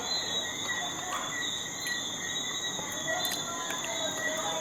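Steady chorus of insects, with several high continuous pitches that keep going without a break.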